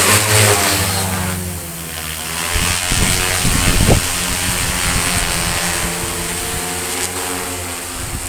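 Multirotor agricultural spraying drone's propellers droning steadily in flight, carrying a full load of about 16 litres of water. A louder rush of low noise comes between about two and a half and four seconds in.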